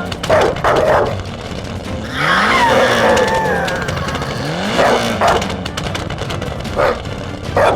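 Vehicle engine sound effects, the pitch rising in a rev about every two seconds, over background music.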